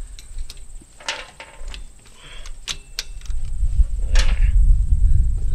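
Sharp metal clinks as the rocker arm shaft assembly is set down onto the Farmall 100's cylinder head and the rocker arms are settled onto the pushrods. A steady high-pitched insect trill runs throughout, and a low rumble builds up over the second half.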